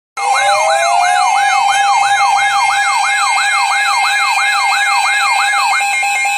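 Electronic siren-style emergency alert tone sounding for a severe thunderstorm warning: it winds up in pitch at the start, then holds steady tones under a fast repeating upward sweep, nearly three a second. Near the end the sweeping stops and only the steady tones hold.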